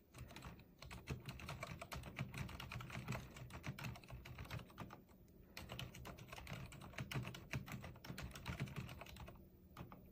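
Typing on a Cherry MX 1.1 tenkeyless mechanical keyboard with Cherry MX Red linear switches: rapid, continuous keystrokes with a couple of brief pauses, stopping about nine seconds in.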